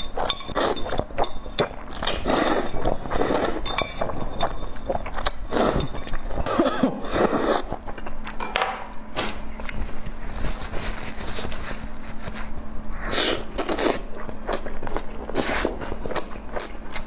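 Close-miked eating sounds: crunching and chewing bursts, with utensils clinking against dishes.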